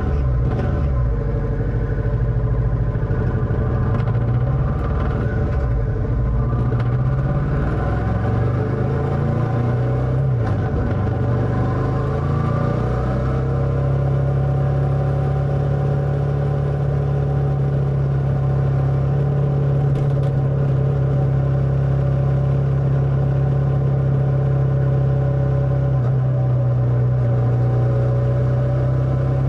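Motorcycle engine running under way, its pitch rising and falling for the first dozen seconds, then holding at a steady pitch.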